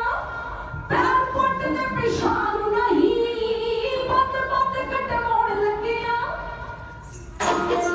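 Women of a Punjabi dhadi jatha singing held, wavering notes together. Near the end the singing fades, then louder accompanied music comes in suddenly.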